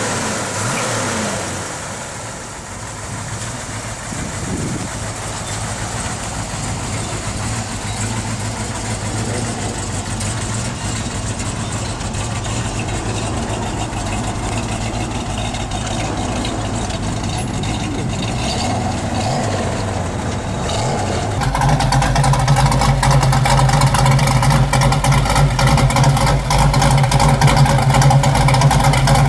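Chrysler 426 Hemi V8 in a Plymouth Hemicuda idling steadily. About two-thirds of the way through, a louder, lumpier 6.98-litre naturally aspirated 426 Hemi V8 takes over, idling through the open dual exhaust of a race car.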